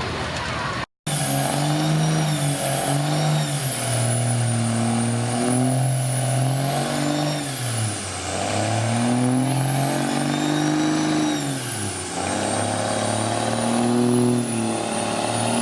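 Truck or tractor pulling engine revving up and down about five times, with a high whistle rising and falling along with the revs; the announcer suspects clutch issues. The sound cuts out completely for a moment about a second in.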